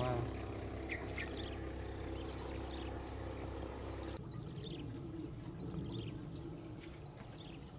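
Outdoor ambience: small birds chirping in short falling calls again and again over a steady high insect whine. A low rumble underneath stops suddenly about four seconds in.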